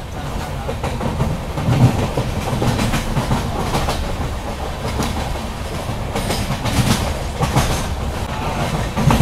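Running noise of a moving Indian Railways passenger coach heard from its open doorway: a steady rumble of wheels on rail, with irregular sharp clacks as the wheels cross rail joints and points.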